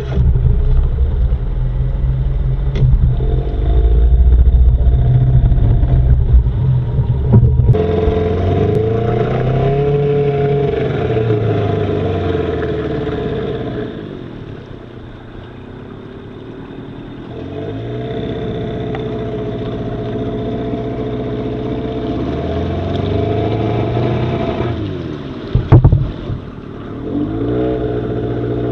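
15 hp Mercury outboard motor running under changing throttle, its pitch rising and falling several times as the skiff works through a broken-up logjam. It eases to a lower, quieter note for a few seconds midway, and a brief knock sounds near the end.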